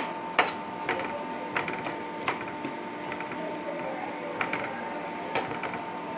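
Metal ladle stirring sliced onions frying in a steel pan, clinking and scraping against the pan about once a second over a steady frying sizzle, as the onions are browned until crisp.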